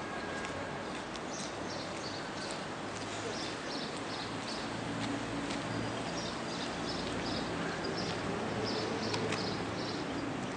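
Small birds chirping in runs of short, high chirps, about three or four a second. Underneath is a steady outdoor street noise with a low engine hum.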